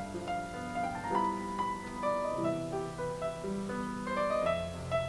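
Background piano music: a slow melody of held notes over sustained chords.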